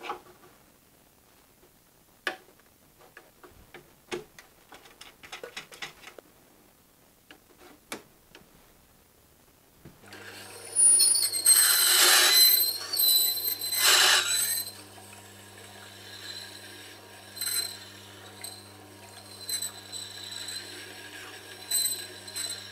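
Small metal clicks and taps as a sharpening jig is set on the Tormek T-8, then about ten seconds in the machine is switched on and its motor hums steadily. The steel ring cutter of a Crown Revolution hollowing tool is held against the extra-fine DE-250 diamond wheel to hone it: loud scraping for a few seconds, then lighter short touches every couple of seconds.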